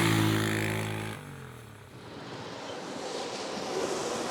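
A vehicle engine drones at a steady pitch, then drops in pitch about a second in as it passes. After that comes a rushing noise that slowly grows louder.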